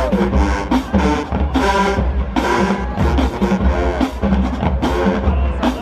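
Marching band playing: brass chords over a heavy bass drum and drum-line strokes in a steady beat.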